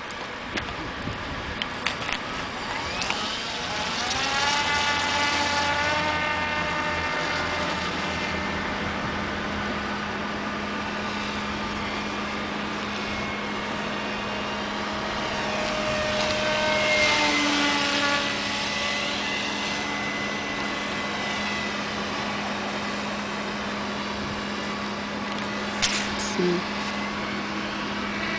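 A scratchbuilt RC plane's brushless electric motor and propeller whining in flight. The pitch rises a few seconds in, and then it runs steadily with small changes in pitch.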